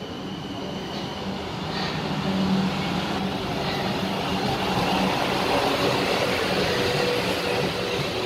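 Siemens Desiro electric multiple unit running along the platform. The rumble of its wheels and traction equipment swells over the first couple of seconds as the cars draw alongside, then holds steady as they pass close by.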